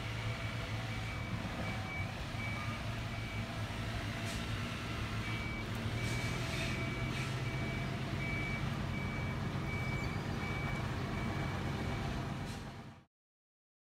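A vehicle's engine running steadily under a repeating high reversing beep. The sound cuts off suddenly about thirteen seconds in.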